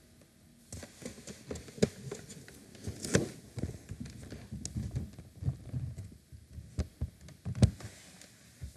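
Irregular taps and knocks with low thumps between them, the loudest about two, three and seven and a half seconds in.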